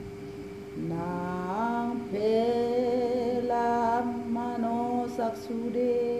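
A woman's solo voice singing a slow song, holding long, steady notes that step up and down in pitch, over a steady low held tone.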